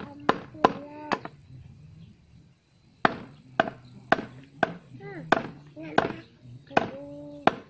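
Cleaver chopping meat on a round wooden chopping block: a dozen or so sharp single strokes about half a second apart, with a pause of nearly two seconds about a second in.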